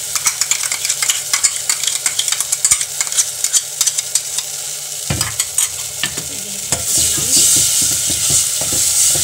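Wet ground dry-fruit and poppy-seed paste sizzling and crackling in hot ghee in a metal pot as a spoon scrapes it in from a mixer jar and stirs it. A low knock comes about halfway, and the sizzle grows louder near the end.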